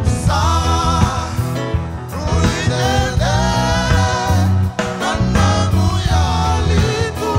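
Two men singing a gospel song into microphones over a live band: a Roland RD-700 stage piano, bass guitar and drum kit, with a steady beat.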